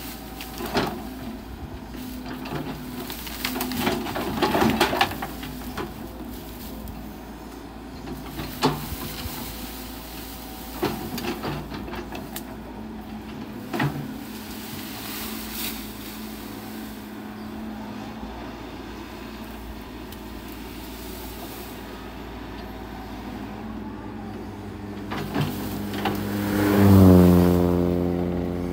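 Sumitomo SH130 excavator's diesel engine running steadily while its bucket tears at brush and branches, with sharp snaps and knocks now and then. Near the end the engine swells loudly under load, then its pitch falls away.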